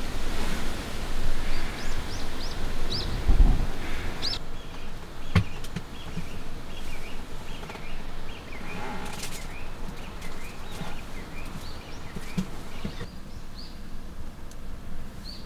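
Small birds chirping again and again over a steady outdoor hiss that drops off about four seconds in, with a dull thump about three seconds in and a sharp knock about five seconds in.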